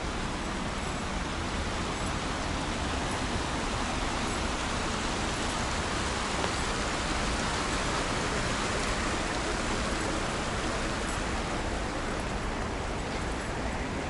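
Shallow stream rushing over rocks with a steady hiss, swelling a little in the middle, over a low rumble.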